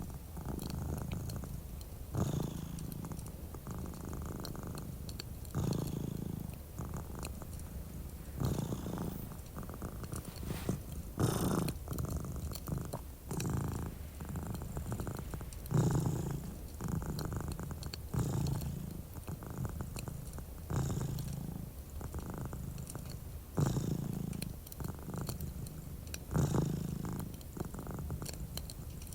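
Domestic cat purring close to the microphone, a steady low rumble that swells with each breath every two to three seconds. Faint crackles of a fireplace tick over it.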